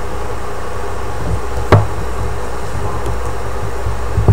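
Sharp knocks from handling a plastic knitting loom and loom hook while wrapping yarn over the pegs: one crisp knock a little under two seconds in and a smaller one near the end, over a steady low hum.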